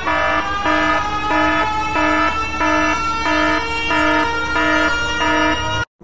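Two-tone hi-lo alarm of a made-up emergency alert: two pitched tones swap back and forth about three times a second, then cut off suddenly near the end.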